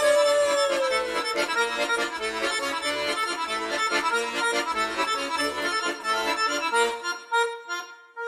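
Instrumental music interlude: a held sung note slides down and fades in the first second or so, then an instrument plays a quick run of notes over a bass line. The bass stops about seven seconds in and a final note is held and dies away.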